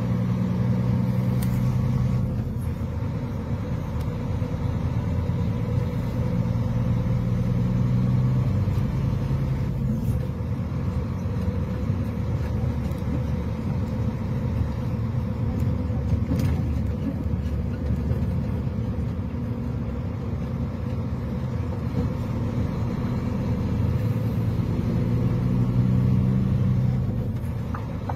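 Heavy vehicle's engine running as it creeps along in slow traffic, heard from on board: a steady low drone that swells a few times.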